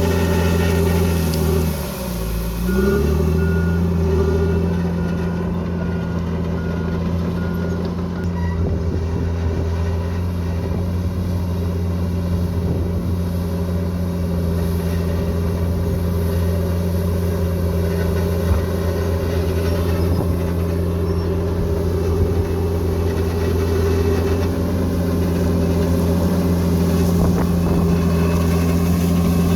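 Bulldozer's diesel engine running steadily under work. About two seconds in its pitch sags and then climbs back. A faint series of evenly spaced reversing beeps follows for a few seconds, and there are a couple of brief knocks later on.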